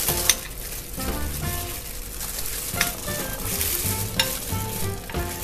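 Metal spoon stirring and scraping cookie dough around a glass bowl, with three sharp clinks of the spoon against the glass. Soft background music plays underneath.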